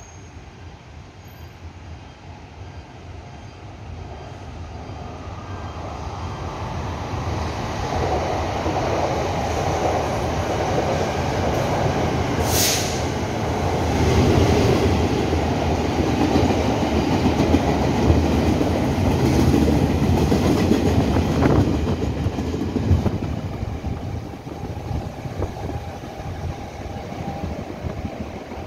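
Taiwan Railway Chu-Kuang Express hauled by E200-series electric locomotive E209 passing through a station without stopping. The noise of the locomotive and its coaches grows over the first several seconds, is loudest as the train goes by, then fades as it runs away. A brief sharp noise cuts across about twelve seconds in.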